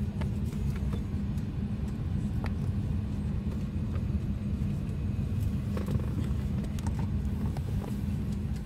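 Steady low rumble of an Embraer 175 airliner cabin, with a few faint clicks and rustles from a seat-back tray table and magazine being handled.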